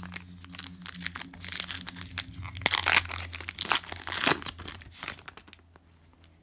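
Foil wrapper of a Donruss Optic basketball card pack crinkled and torn open by hand: a dense run of crackles and rips that peaks in the middle and dies away about five and a half seconds in.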